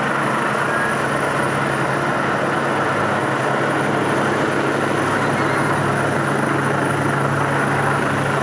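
Helicopter flying low overhead, its rotor and engine making a steady, even sound.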